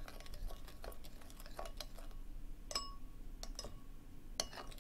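Metal spoon stirring a thin tamarind sauce in a ceramic bowl, clinking against the side of the bowl several times with short, ringing chimes, the loudest a little before the middle.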